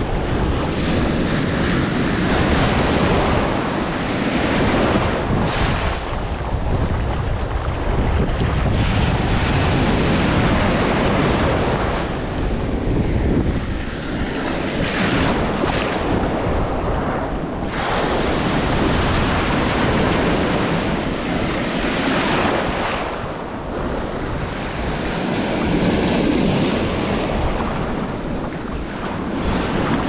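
Ocean surf breaking and washing over the shallows, swelling and easing every few seconds, with wind buffeting the microphone.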